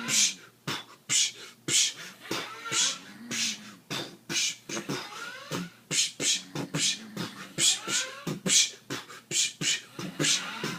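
Mouth-made drum-and-bass beatbox rhythm: a steady run of sharp hi-hat hisses and clicky kick and snare sounds, with short low vocal tones between them, played along with a sleeping person's snoring.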